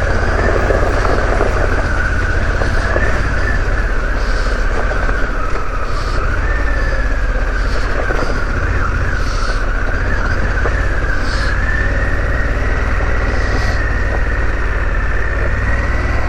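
Harley-Davidson Pan America's 1250 V-twin engine running at low speed on a rough track, with a high whine that drifts slightly in pitch. There are a few short hissing bursts over it.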